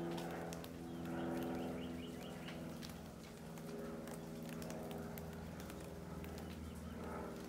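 Overlapping low, drawn-out animal calls that hold their pitch for seconds at a time, with scattered light ticks like dripping rain.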